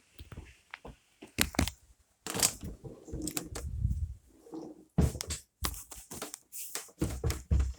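Hailstones striking the building, windows and cars outside in a hailstorm, an irregular run of sharp cracks and clatters.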